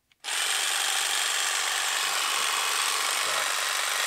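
Ryobi 18V brushless cordless jigsaw switching on about a quarter second in and running steadily with no load, its blade stroking freely in the air at the low speed setting with the trigger locked on.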